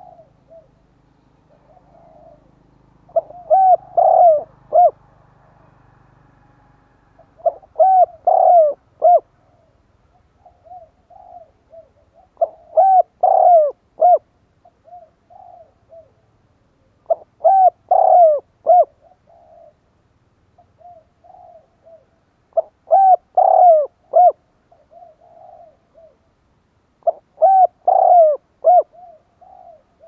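Caged decoy spotted dove cooing. It gives a phrase of three or four coos about every five seconds, six times, with softer single coos between the phrases. This is the calling song used to lure and provoke wild spotted doves.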